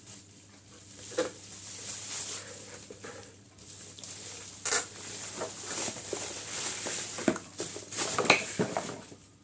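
Rustling and crinkling of packaging with a few sharp knocks and clicks as a handheld car vacuum cleaner is taken out of its box.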